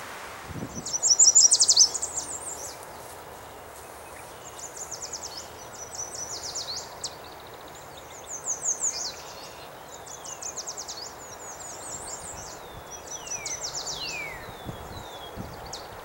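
Yellow warbler singing: short, high, rapid song phrases of quick notes, some ending in a falling slur, repeated every second or two, the loudest about a second in, over a faint steady outdoor hiss.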